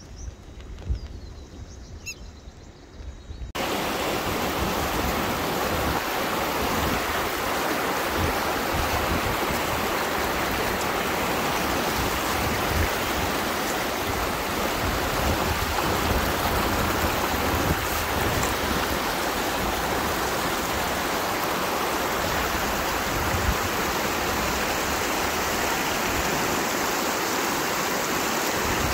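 Shallow Kosi River rapids rushing and splashing over stones, a loud steady rush that comes in abruptly about three and a half seconds in. The quieter first seconds hold a few faint bird chirps.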